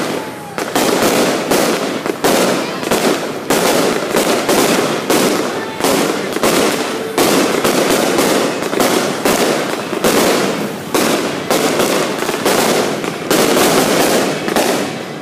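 Aerial fireworks going off in rapid succession: loud bangs several a second, with crackling between them.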